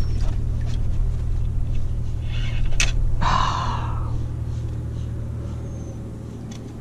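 Steady low rumble of a motorboat engine, slowly fading over the last few seconds. About three seconds in come a sharp click and then a short rush of noise.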